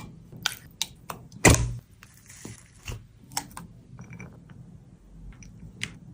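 Light clicks and taps of kitchen utensils handled while preparing falooda, with one louder, short scraping sound about one and a half seconds in.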